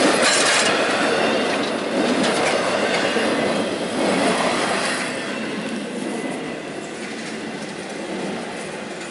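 Empty intermodal flatcars of a freight train rolling past, steel wheels running over the rails with a steady rumble and rattle. It grows quieter about five seconds in.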